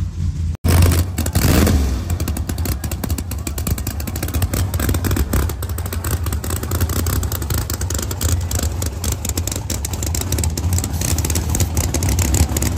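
Drag race cars' engines idling loudly at the starting line: a steady low drone with a fast, irregular crackle over it.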